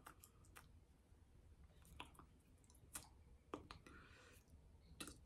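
Near silence: low room hum with about a dozen faint, irregular short clicks and smacks scattered through it.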